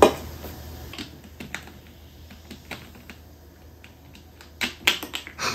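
Drink bottles and a can being handled on a kitchen counter, their plastic caps twisted: a sharp knock right at the start, scattered light clicks and taps, then a quick run of louder clicks near the end.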